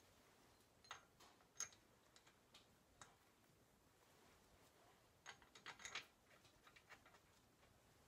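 Faint scattered metallic clicks of a hand wrench working on bolts and metal parts, with a quick run of several clicks about five to six seconds in.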